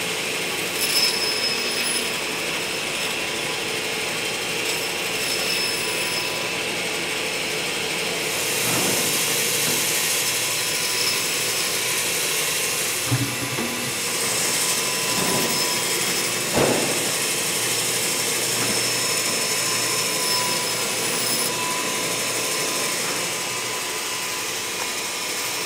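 Meat band saw running and cutting through frozen meat blocks, a steady mechanical whine and hiss that grows louder for a stretch in the middle. A few short knocks come as the blocks are pushed and handled.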